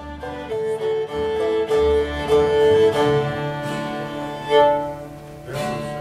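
Old-time string band sound-checking: a fiddle bows long, sustained notes over upright bass and guitar. The playing thins out near the end.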